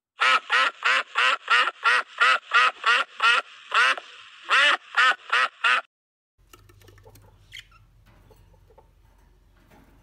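Domestic ducks quacking: a rapid, loud run of quacks, about three a second, with a short pause near four seconds in, stopping about six seconds in. After that only a faint low hum with small ticks remains.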